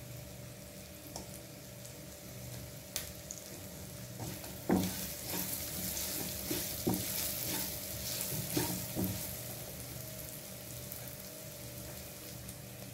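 Chicken pieces and spices sizzling in oil in a nonstick wok. A slotted spatula stirs them, scraping and knocking against the pan several times in the middle.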